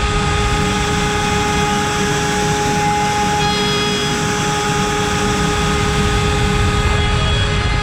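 CNC router spindle running at 24,000 rpm, a steady high whine over the rough noise of an 8 mm cutter milling wood.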